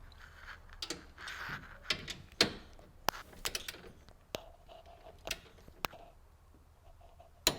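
Torque wrench tightening the M10 bracket bolts to 54 foot-pounds: scattered, irregular metallic clicks and knocks with a few short scrapes of tool handling.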